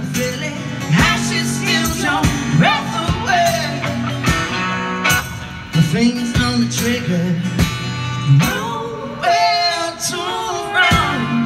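Live band playing a blues-rock song on acoustic and electric guitars, with a voice singing the melody over them.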